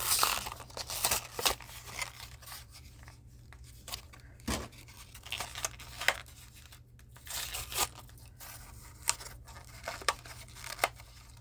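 Diecast toy-car packaging being torn and crinkled open by hand, in irregular short rips and crackles.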